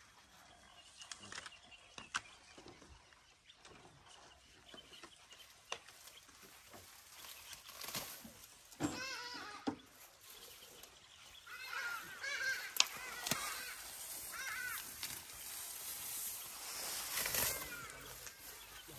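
Birds calling in short series of harsh, repeated calls, over scattered snaps and rustles of a young elephant pulling and chewing tall grass.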